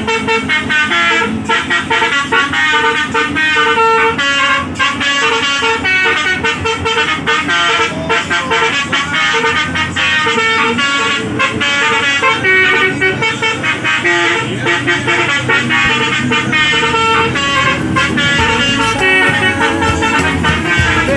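Basuri 'telolet' musical multi-trumpet air horn on a tour bus playing a tune, a run of quick, changing horn notes that keeps going without a break.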